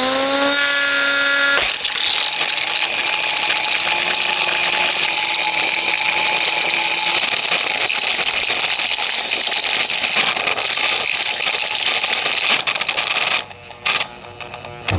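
Hamilton Beach 7 Speed Blendmaster blender motor, its housing smashed open, spinning up with a rising whine. It then runs flat out with a loud mechanical rattle from its broken parts. Near the end it cuts out and starts again a couple of times in quick succession.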